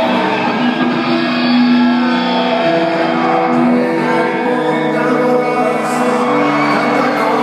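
Live rock band music, with sustained held notes shifting every second or two, recorded loud from the audience.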